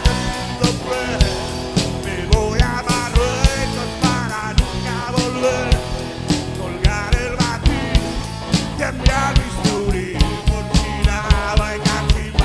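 Live rock band playing an instrumental passage: the drum kit keeps a steady beat under bass and a wavering lead melody line.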